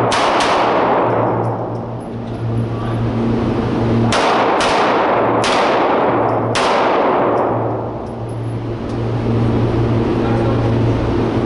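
Pistol shots fired by an IDPA competitor, each with a long echoing tail in the indoor range. A quick pair comes at the start and another about four seconds in, then two single shots follow a few seconds later. A steady low hum runs underneath.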